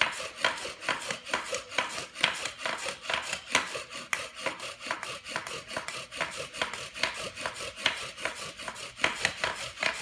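Bow drill in use: a wooden spindle spun back and forth in a hearth-board socket by a stick bow and cord, giving a rhythmic rasping of wood on wood at about two strokes a second. The friction is grinding out the wood dust that builds toward a friction-fire ember.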